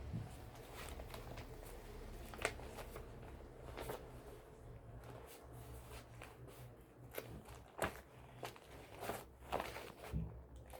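Paper being handled and crinkled: irregular rustles and crackles, a few sharper ones spaced a second or more apart, over a low steady hum.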